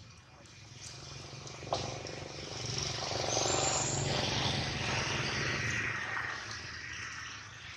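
A passing motor vehicle swells up over a couple of seconds, holds, then fades away. A single sharp click comes just before it builds.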